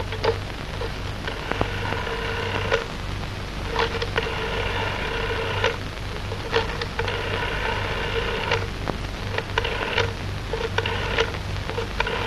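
Rotary telephone being dialled: sharp clicks and several stretches of a steady buzzing tone, each one to two seconds long, as the dial is turned and runs back, over a steady hiss.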